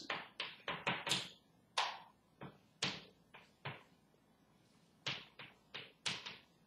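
Chalk writing on a blackboard: a rapid series of short taps and scrapes as each letter is stroked out, with a pause of about a second partway through before the strokes resume.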